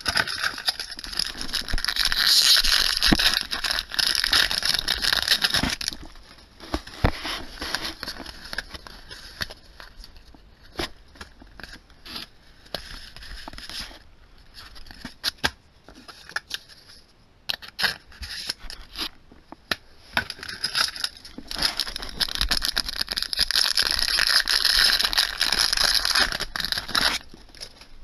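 Foil booster pack wrappers and trading cards being handled: two long stretches of crinkling and rustling, the first as a pack is picked up and opened, with scattered clicks and taps of cards being flipped through in between.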